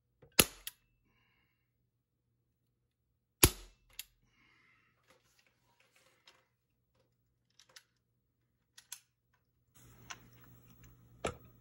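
Two sharp shots from a CO2-powered M4-style airgun, about three seconds apart, each followed a moment later by a fainter knock. Light clicks and handling noise follow, and near the end a steady low hum comes in with one more click.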